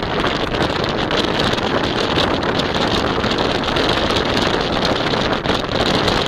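Steady, loud rushing and buffeting of wind over the microphone, with the running noise of a moving vehicle beneath it.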